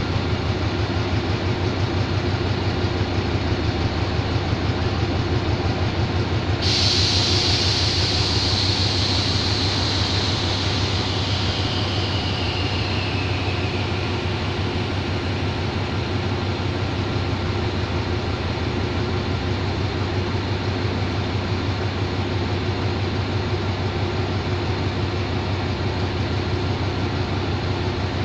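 Diesel-electric locomotive standing at idle, its engine running with a steady low throb. About seven seconds in, a loud hiss starts abruptly, then slowly falls in pitch and dies away over several seconds.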